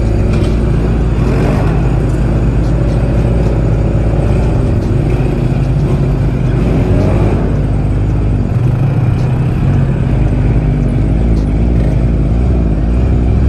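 Off-road vehicle engine running at low speed over a dirt track, its pitch wavering up and down as the throttle changes, with the engines of nearby quad bikes behind it.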